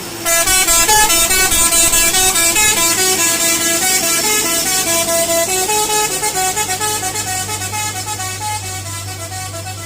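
Hino 500 FM 260 TI dump truck's 'basuri' musical air horn playing a quick tune of short stepped notes, growing fainter toward the end, over the steady hum of the truck's engine.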